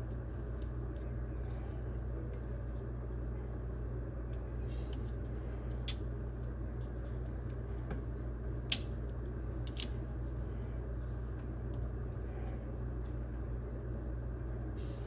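Steady low hum with a few sharp clicks, about six, nine and ten seconds in, as the small plastic-and-metal door switch parts of a microwave are handled.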